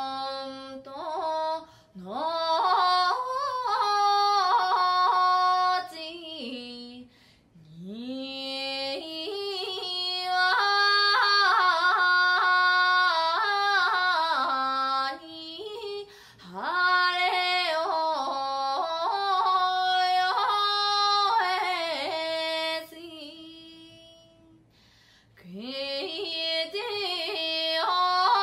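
A woman singing in long phrases separated by short pauses, each phrase opening with a swoop up in pitch, with little or no accompaniment.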